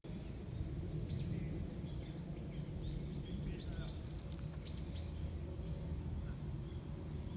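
Outdoor park ambience: a steady low rumble, with a small bird chirping in short, quick notes, several in a row over the first five seconds or so.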